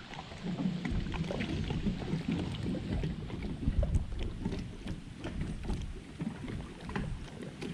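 Water lapping against a fishing boat's hull with wind rumbling on the microphone, and scattered faint clicks.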